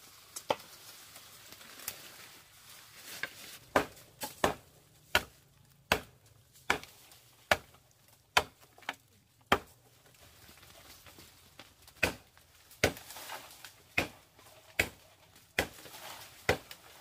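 Steady chopping strokes of a blade into wood, one sharp chop about every three-quarters of a second, with a pause of about two seconds midway.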